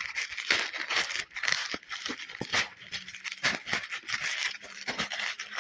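Plastic courier mailer bag crinkling and rustling as hands pull at it and tear it open, a dense run of irregular crackles.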